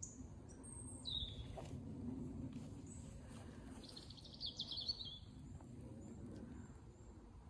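Small songbirds calling in woodland: a few short high chirps, then a fast trill about four seconds in, the loudest sound. A low steady rumble runs underneath.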